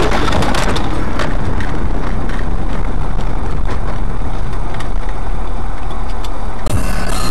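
Steady noise of a car driving on the road, engine and tyres together, with a few faint ticks. The sound changes abruptly near the end.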